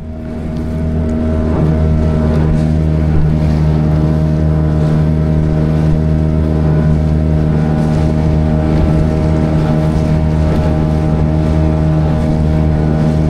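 Outboard motor pushing a small boat along, running steadily after picking up speed over the first second or two, with wind rushing over the microphone.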